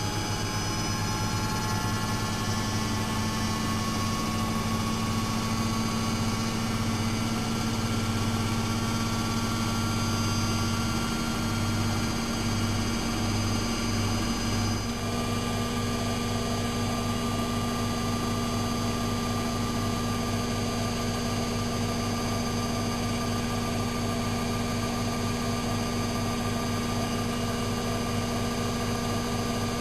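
Lloyds 825 washing machine running, its motor giving a steady hum with several whining tones that drift slightly. About halfway through, the sound changes suddenly and settles into a steadier hum.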